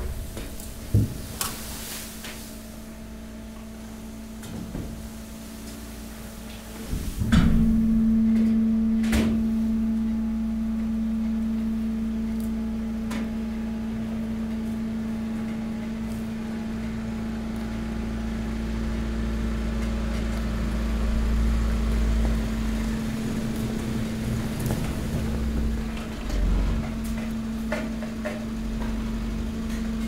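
Hydraulic waste press at work. A few knocks come early, then about seven seconds in a loud clunk as the hydraulic pump comes under load. The pump then hums with a steady tone over a low rumble while the ram pushes the mixed waste, with occasional knocks.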